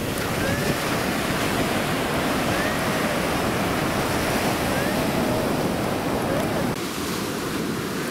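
Surf washing up the beach with wind on the microphone, the wash continuous throughout. Faint rising-and-falling tones from a Whites TDI pulse-induction metal detector come through every second or two as its coil is swept.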